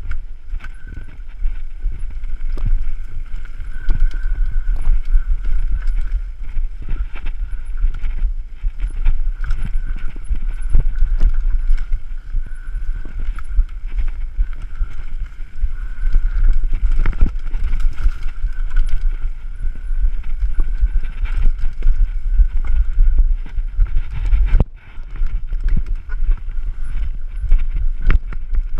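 Mountain bike descending a rocky forest trail at speed, with constant rattling and clattering from the bike over rocks and roots. A steady low rumble of wind and vibration on the microphone runs underneath. The clatter drops away for a moment near the end.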